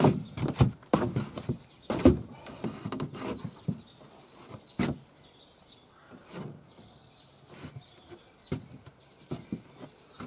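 Irregular knocks and thuds on wood from the timber wall frame and plank floor, packed close over the first few seconds, then scattered. Faint bird chirps in the background.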